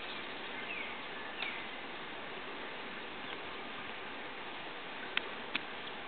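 Eurasian siskin giving two short, faint descending whistled calls about a second in, over a steady hiss. Near the end, two sharp clicks.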